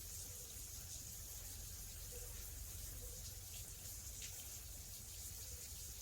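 Water spraying from a hose onto stacked shiitake logs: a faint, steady hiss.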